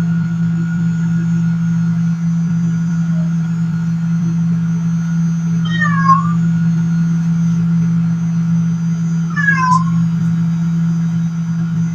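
Microwave oven running with a steady hum. A cat meows twice, briefly, once about halfway through and again a few seconds later.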